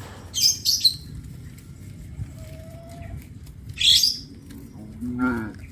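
Short, shrill bird calls: a few together near the start and another about four seconds in, with a short falling call near the end, over a low steady rumble.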